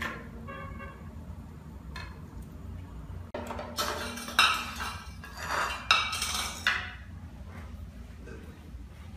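Crockery and cutlery clattering: bowls, plates and a metal spoon knocked and set down on a tiled floor in a run of sharp clinks over about three seconds, after a faint brief ring about half a second in.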